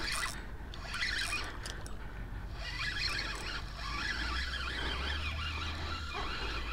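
Spinning reel being cranked with a rattling, zipper-like whir while a hooked speckled trout is reeled in. A low hum comes in briefly past the middle.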